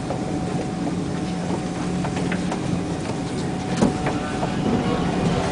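Steady hum inside a stationary SMRT C151 metro car standing at a platform with its doors open, with crowded passengers shuffling in and out and scattered small knocks. One sharper knock comes near four seconds in.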